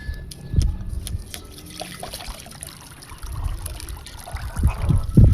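Water trickling and sloshing with irregular soft knocks, quieter in the middle and getting louder near the end.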